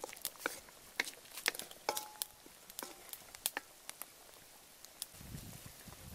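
Wooden spatula stirring chicken liver in a metal wok of simmering broth, giving irregular sharp knocks and scrapes against the pan, some ringing briefly.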